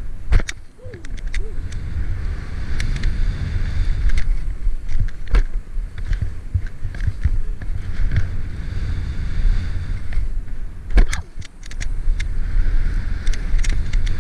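Skis scraping and chattering over packed snow on a bumpy run, with wind rumbling on the action camera's microphone and many sharp clicks and knocks. The rush drops away briefly twice, near the start and about eleven seconds in.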